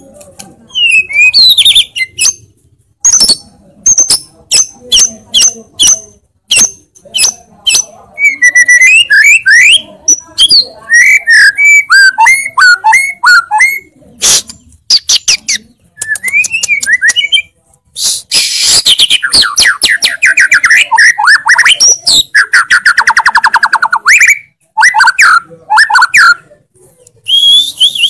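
White-rumped shama (murai batu) singing loudly in fast bursts: many sharp clicking notes in the first part, then whistled phrases sliding up and down, and dense, rapid trills from a little past the middle.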